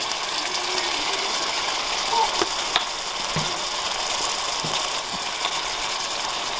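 Pepper mill being twisted, grinding black pepper over curry that sizzles steadily in a stainless steel pan, with a few light clicks around the middle.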